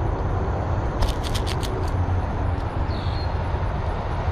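Steady low outdoor rumble, with a quick run of about six sharp clicks about a second in and a short high chirp about three seconds in.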